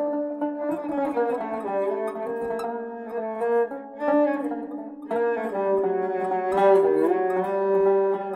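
A tanbur (plucked long-necked lute) and a bowed spike fiddle playing an Ottoman classical saz semai in makam Hicazkâr, with sustained bowed lines over plucked notes. The playing thins out briefly about halfway through, then comes back in full.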